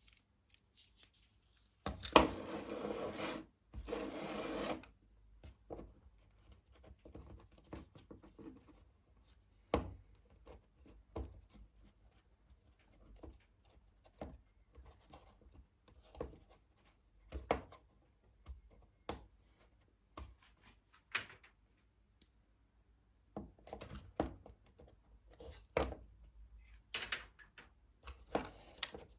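Parts of a lawn mower's recoil pull-start assembly being handled on a workbench: two rubbing, scraping sounds about two and four seconds in, then scattered light clicks and knocks, coming more often near the end.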